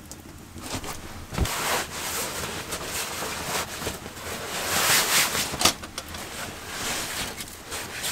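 Fabric rustling in uneven swells as a person lies down and settles under bedding, with a thump about a second and a half in.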